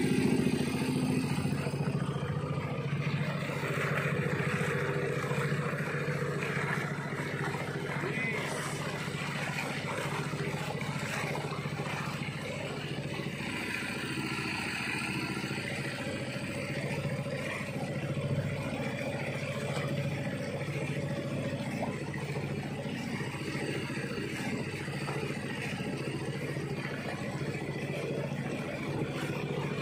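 Small fishing boat's engine running steadily, driving the boat along at a constant speed.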